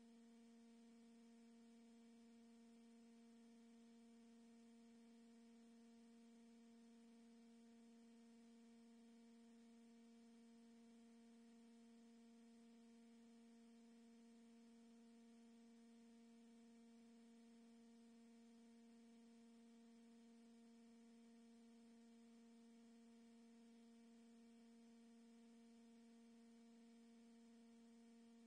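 Near silence with a faint, steady electrical hum: one low tone with its overtones, unchanging throughout.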